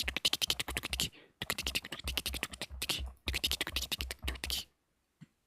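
ASMR mouth sounds close to the microphone: rapid wet clicks and smacks of the lips and tongue in three quick runs, stopping shortly before the end.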